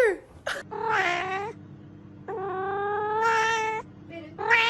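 A cat yowling: three drawn-out meows, the middle one held steady for about a second and a half.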